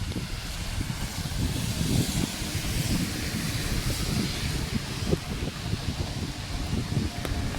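Steady rain hiss with wind buffeting the microphone in low rumbling gusts; the hiss swells for a few seconds in the middle.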